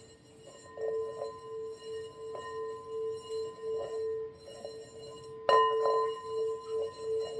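Singing bowl ringing with a wavering hum that pulses about twice a second, struck again about five and a half seconds in.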